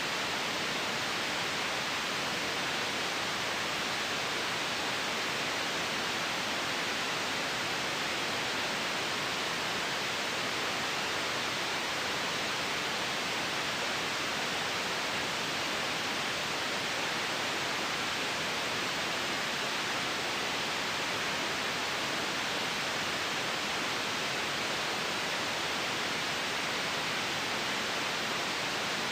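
Steady synthetic white noise: an even, unbroken hiss that does not change.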